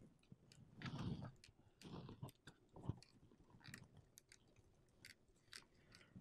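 Faint rustling and small scattered clicks of hands handling a wire bundle and its nylon spiral wrap, loosening the wrap and sliding it along the wires.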